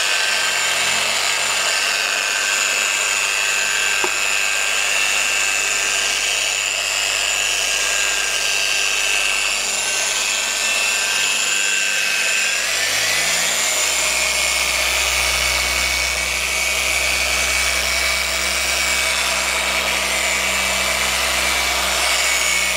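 Handheld electric machine polisher running steadily with its foam pad on car paintwork, a continuous whine that shifts in pitch about halfway through.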